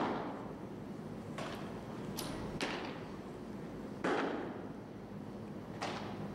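A baseball smacking into leather gloves, about five sharp pops with the loudest about four seconds in, each echoing in a large indoor hall.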